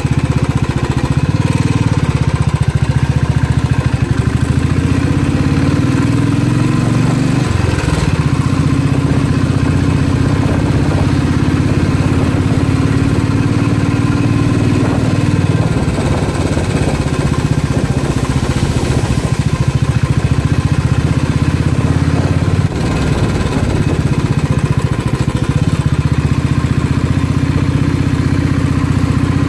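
Motorcycle engine running steadily while being ridden, a low throbbing exhaust note. The note shifts down and picks up again about seven seconds in, with a brief drop in level a little past twenty-two seconds, as the rider eases off and opens the throttle.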